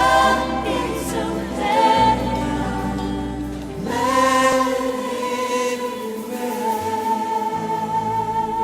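Choir singing a gospel worship song with musical backing, moving into one long held note about four seconds in.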